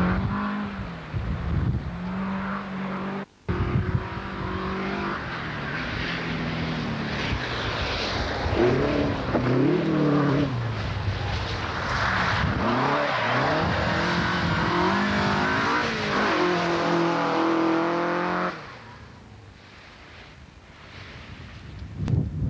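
Rally cars at full throttle on a special stage, engines revving hard with the pitch climbing and dropping at each gear change as they pass. The sound cuts out for a moment about three seconds in. It eases to a quieter stretch near the end before another car comes through.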